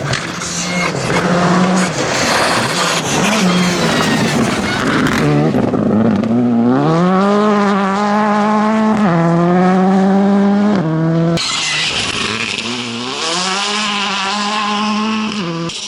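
Rally cars at speed. First comes a few seconds of loud tyre and gravel noise over the engine. Then an engine revs up through the gears, its pitch rising and dropping back at each upshift. After an abrupt cut, another run accelerates through two more upshifts.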